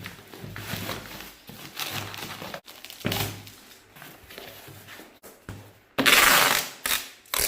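Plastic-wrapped bags of rice and sacks being handled and packed, an irregular crinkling rustle with a longer, louder rustle about six seconds in.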